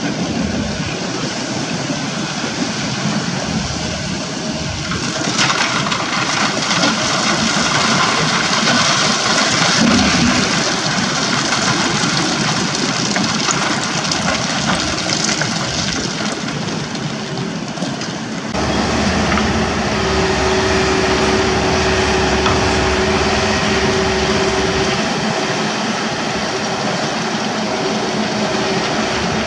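Excavator's diesel engine and hydraulics working under load while wet earth and stones spill from its bucket into a dump truck's bed. About eighteen seconds in, the sound changes abruptly to a closer, steadier engine hum with a clear steady tone.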